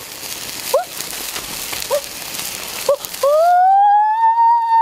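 A boy's voice: short rising 'mm' sounds about once a second over a steady hiss, then, a little after three seconds in, one long drawn-out 'ooooh' that rises and falls in pitch, an exaggerated reaction while tasting the grilled food. The hiss stops just as the long call begins.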